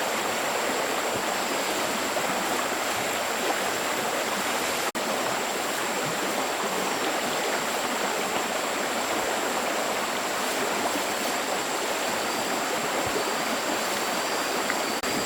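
Stream water flowing steadily, an even rushing with a thin, steady high-pitched tone over it; the sound cuts out for an instant about five seconds in.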